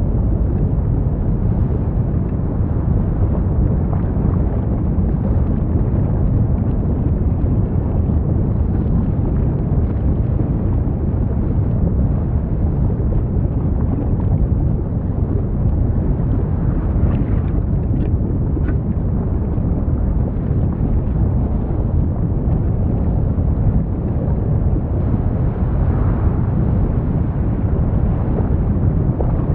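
Lava sound effect: a steady, deep rumble, with a few faint crackles a little past the middle.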